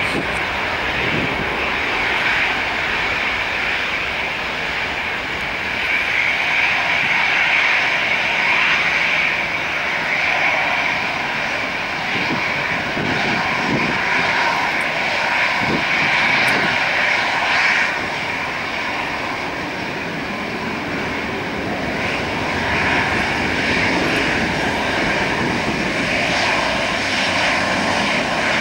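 Airbus A319-111 airliner's twin CFM56-5B turbofans running at taxi power, a steady high whine over a lower hum that swells and eases a little as the aircraft taxis closer.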